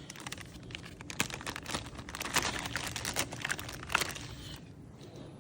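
Packaging crinkling and rustling as car-wash supplies are handled and unpacked, with many quick crackles and clicks that die down near the end.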